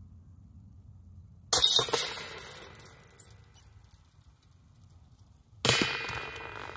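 Two putted golf discs hitting the metal chains of a disc golf basket. Each is a sudden crash of jangling chains that rings and fades over about a second. The second comes about four seconds after the first and is quieter.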